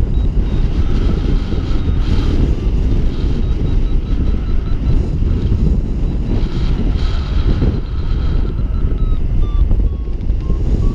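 Airflow rushing over the microphone of a paraglider in flight: a loud, steady wind rumble.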